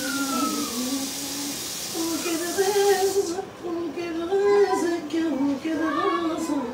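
A woman's voice singing a slow melody in held, stepping notes. A steady hiss sits under the first half and cuts off about three seconds in.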